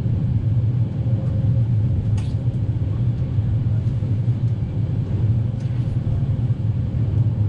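Running noise of a moving EuroCity passenger train heard on board: a steady low rumble from the wheels on the rails, with a couple of faint clicks.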